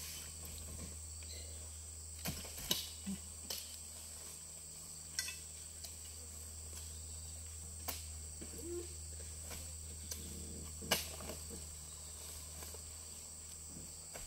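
Steady high-pitched insect chirring throughout, with a low steady hum underneath. Scattered sharp knocks and thuds, about seven, the loudest about eleven seconds in, come from oil palm fruit bunches being thrown up and landing on the load in a truck's wooden bed.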